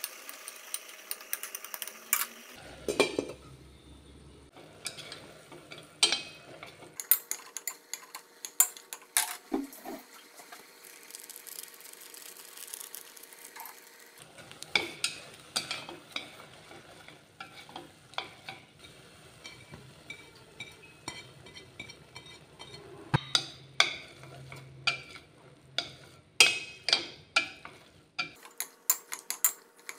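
Chopsticks stirring and tossing instant noodles with chopped tomatoes in a stainless steel pot, with irregular clicks and taps of the chopsticks against the metal, coming in quick clusters in the second half.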